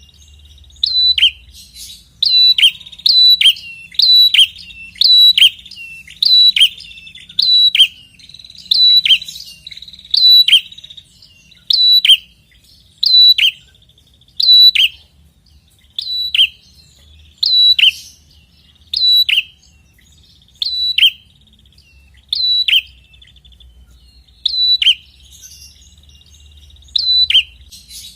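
Prenjak kepala merah (red-headed prinia-type songbird) calling insistently: a sharp two-part call, a high note then a quick downward stroke, repeated about once every second and a half, with one slightly longer pause near the end.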